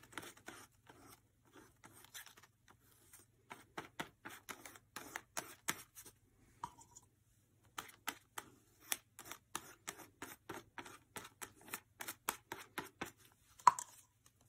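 Plastic glue spreader brushing and dabbing PVA glue onto a black paper tree cut-out laid on card: quick, irregular scratchy strokes, with a pause of about a second midway and a sharper click near the end.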